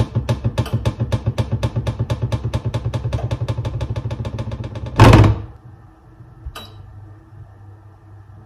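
Stove igniter clicking rapidly and evenly, about six or seven clicks a second. About five seconds in the clicking stops with a short loud burst, and a faint low hum follows.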